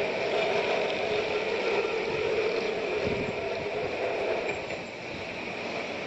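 Electric street tram running along its rails: a steady, noisy rolling sound that eases a little near the end.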